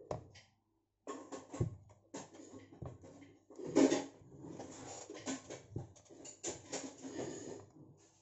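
Handling noise from an iPad and its stand holder: irregular clacks, knocks and scrapes of the tablet and plastic parts being moved, with the loudest knock about four seconds in.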